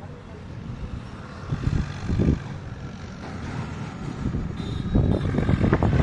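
Low, uneven rumble of road traffic, growing louder from about five seconds in as a vehicle goes by.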